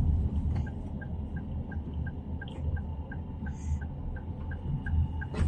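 Steady low rumble of a car driving, heard from inside the cabin, with the turn-signal indicator ticking evenly about three times a second.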